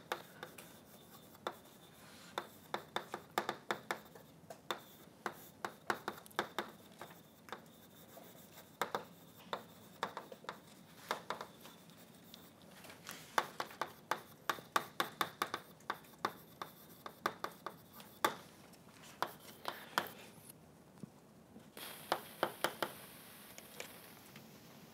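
Chalk writing on a blackboard: bursts of quick taps and scratches as letters are formed, with short pauses between strokes of writing.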